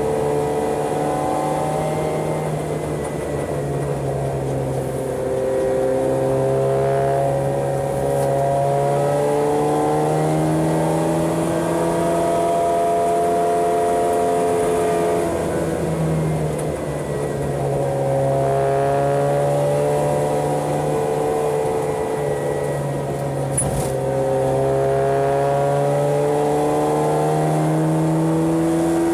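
Subaru 360's small air-cooled two-stroke two-cylinder engine pulling the car along, its pitch climbing slowly over several seconds and falling back twice, as the car is driven on a winding road.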